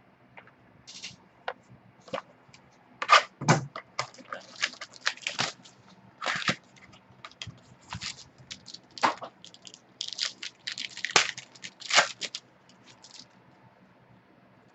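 Foil trading card pack wrappers crinkling and tearing as packs are opened and the cards handled: an irregular run of sharp crackles and rustles that dies away near the end.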